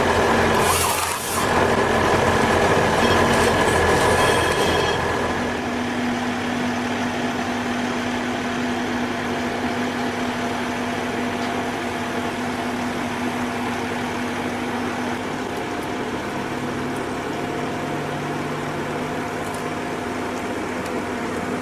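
Heavy machine's engine running steadily. It is louder for the first five seconds, with a brief hissing rush about a second in, then settles to a steadier, lower hum.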